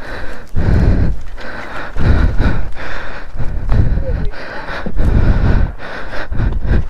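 Hard breathing of a person scrambling up boulders, close to the microphone: rough gusts of breath roughly once a second, each with a low rumble of air hitting the microphone.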